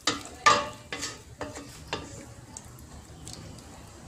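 Wooden spatula stirring pork belly pieces in liquid in a stainless steel pot, knocking and scraping against the pot's side and bottom. The knocks come closely spaced at first, the loudest about half a second in, then thin out after about two seconds.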